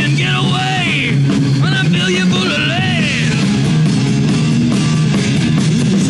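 Live metal band playing: distorted electric guitar, electric bass and drums, with a high line that bends up and down in pitch through the first three seconds or so.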